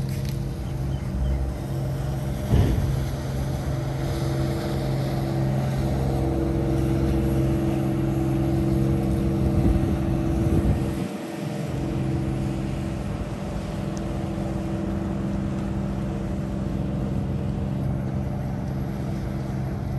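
Passenger boat's engine running steadily as it motors past across the harbour, the hum growing louder to about ten seconds in and then falling away. A brief thump comes about two and a half seconds in.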